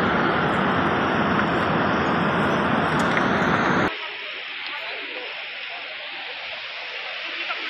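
A loud, steady rushing roar that drops abruptly about four seconds in to a quieter hiss with faint voices.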